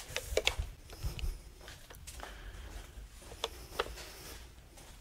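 Footsteps on a concrete floor and handheld-camera handling noise: a few scattered light clicks and scuffs over a low rumble, busiest in the first second and a half.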